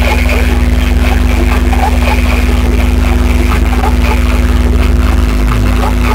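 Loud improvised electronic drone: a low bass hum with a fast, even pulse under several steady held tones. The pulsing low part drops away about five seconds in.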